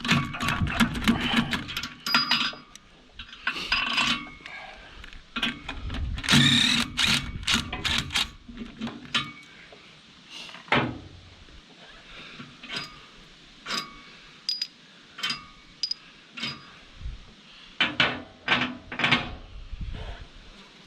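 Hand tools working steel knife bolts on a wood chipper's cutter drum: a rapid run of ratchet-like clicking in the first couple of seconds, then scattered metal clinks and knocks as the bolts and the chipper knife come out.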